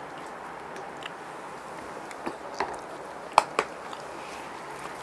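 Quiet eating sounds as biryani rice is mixed and squished by hand on a banana leaf. A few short sharp clicks come through, the loudest two close together a little past the middle.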